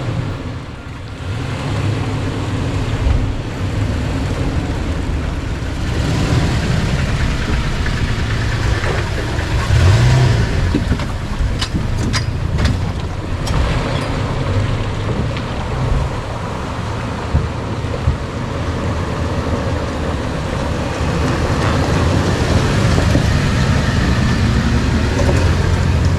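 Off-road 4x4 vehicle's engine running and rising and falling in revs as it crawls over a rocky trail section. A few sharp knocks come about halfway through.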